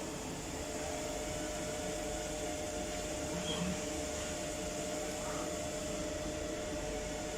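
Lathe running with a steady electric motor hum, two held tones over an even drone.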